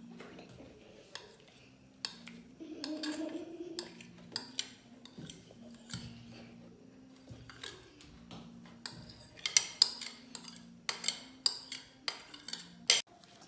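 A spoon scraping and tapping thick mayonnaise out of a bowl into a stainless steel mixing bowl: scattered sharp clicks and knocks that come thicker and louder in the last few seconds.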